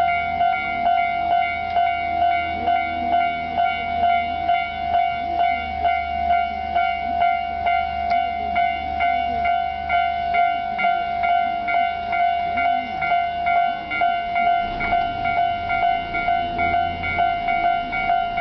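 Japanese railway level crossing alarm ringing, an unusual variant of the standard electronic warning tone. The ringing tone repeats at an even pace without a break.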